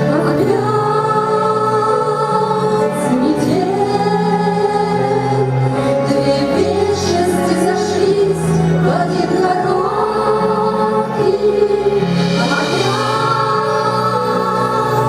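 Music: a slow song with sustained melody notes and voices over a steady bass line.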